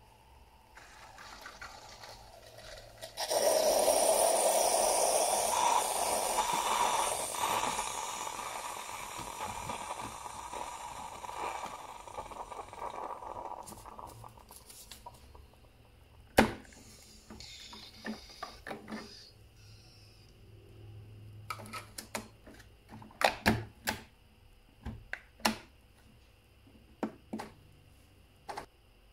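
Bosch Tassimo Vivy 2 capsule machine ending a milk T-disc cycle: a soft hiss, then about three seconds in a loud hiss and sputter as it blows through the disc, fading out after some ten seconds. Later come sharp clicks and knocks as the disc and machine are handled.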